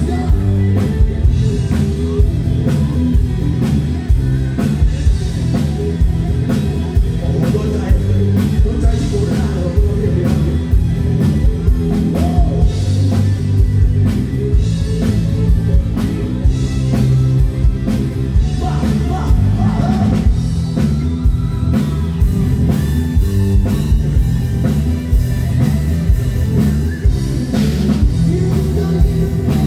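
Live rock band playing loud through a stage PA: drum kit, electric bass, guitar and keyboard, with a male singer's vocals.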